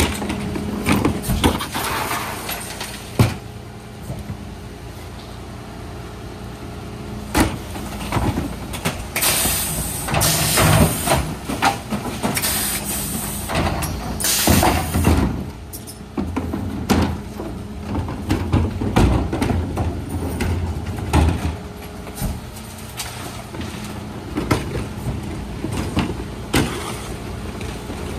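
Mercedes Econic refuse truck standing with its engine and hydraulics giving a steady hum, while the Zoeller lifters raise and tip wheelie bins into the Faun Variopress body. Bins clunk and knock against the lifter. Several loud bursts of clatter come in the middle as rubbish drops into the hopper.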